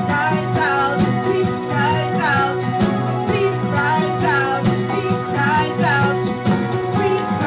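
A woman singing a worship song into a microphone, accompanied by an electric keyboard, with bending, repeating vocal phrases over sustained chords.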